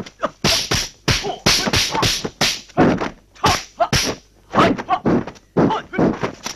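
Dubbed kung fu fight sound effects: a rapid string of sharp punch and kick whacks, about three a second, as blows are traded and blocked.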